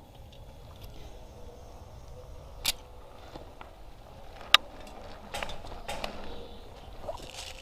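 Two sharp cracks about two seconds apart, the second the loudest, followed by a run of fainter clicks and knocks: shots from airsoft guns.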